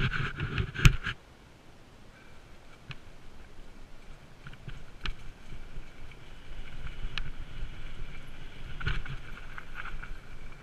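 Mountain bike rolling fast over a dirt forest singletrack: a burst of loud rattles and knocks in about the first second as it hits rough ground, then tyre and frame noise with wind on the microphone, growing as it speeds up, with scattered small clicks and a faint steady high buzz.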